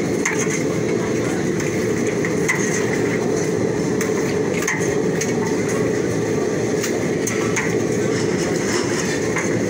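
Steady low rumble with scattered light metallic clinks of a steel ladle knocking against a large aluminium cooking pot as it stirs curry.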